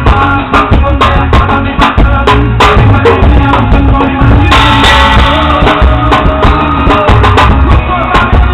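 Drum kit played with two thin wooden skewers instead of drumsticks, quick hits over a backing song with pitched instruments. A cymbal crash rings out about four and a half seconds in.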